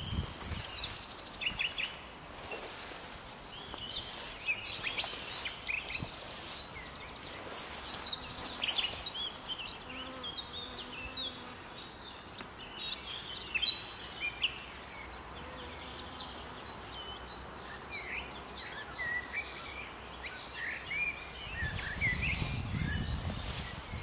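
Several birds singing at once, a common nightingale among them, in quick, varied phrases of chirps and trills. A brief low rumble comes near the end.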